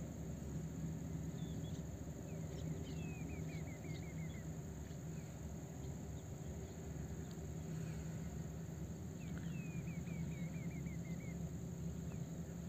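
Steady low hum of the gondola ropeway's station machinery as the cabins run through the station, with two quick runs of high, falling chirps over it.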